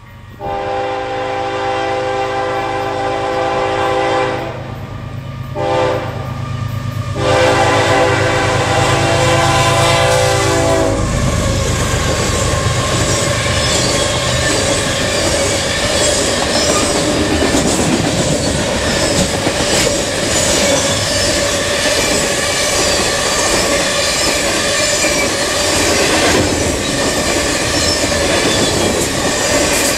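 Locomotive horn (Nathan K5HL airhorn on a CP ES44AC) blowing a long blast, a short blast and another long blast for the grade crossing, with the diesel locomotive's rumble underneath. From about 11 seconds in the horn stops and empty coal hopper cars roll past steadily, wheels clicking over the rail joints and car bodies rattling.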